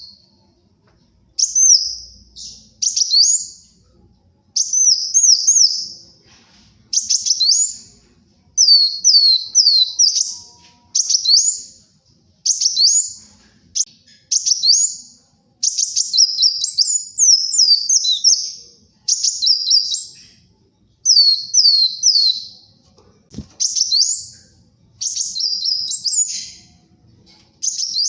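Kolibri wulung sunbird singing: quick phrases of high, thin sweeping notes, each about a second long, repeated over and over with short pauses between them.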